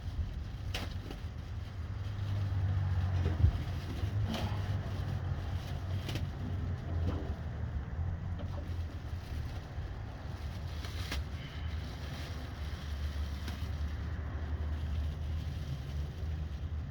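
Steady low rumble with a few scattered knocks and clicks, the sharpest about three and a half seconds in.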